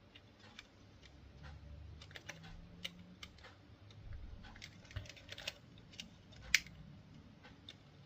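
Faint, irregular light clicks and taps of small model-locomotive parts being handled, with one sharper click about six and a half seconds in.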